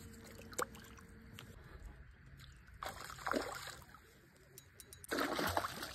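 Fish splashing in the water at the side of the boat, in a short burst about three seconds in and again, louder and longer, from about five seconds on.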